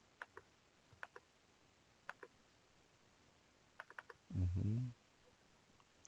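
Computer mouse clicking, mostly in quick pairs about a second apart with a short run of clicks near the end, followed by a short hummed "hmm".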